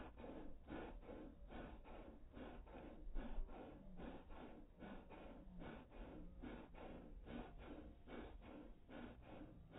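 A black Labrador panting, played back slowed down: an even run of quick breaths in and out, about three a second.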